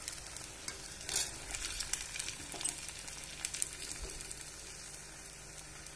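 Bondas made from idli batter deep-frying in hot oil in an iron kadai, the oil sizzling steadily, with a few light clicks as a perforated metal spoon turns and lifts them.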